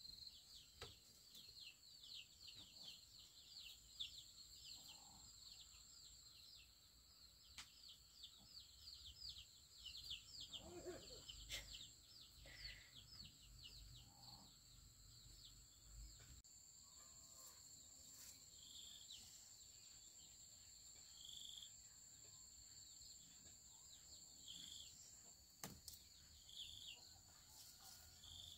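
Faint rural background: a steady high insect drone, with a bird chirping in quick repeated notes for about the first ten seconds, then giving single calls every few seconds.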